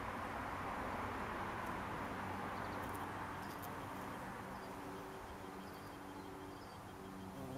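Steady outdoor background rush that slowly fades, with a faint bee buzz coming in about halfway through and a few faint bird chirps.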